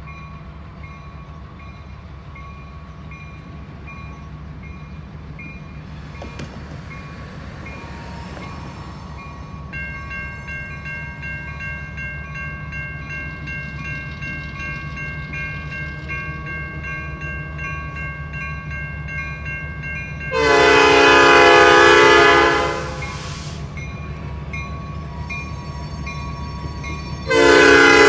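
Diesel freight locomotives, an EMD SD40-2 leading and a GP15-1 behind, rumbling as they pull out of a siding toward a grade crossing, with a bell ringing. The lead locomotive's air horn sounds a long blast about 20 seconds in and another begins near the end, both far louder than the rest.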